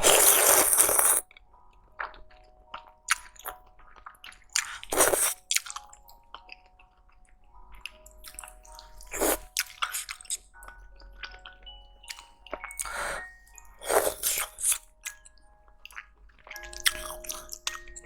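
Close-miked eating: slurping noodles and chewing, heard as separate wet, noisy bursts every few seconds, with a loud burst of noise in the first second.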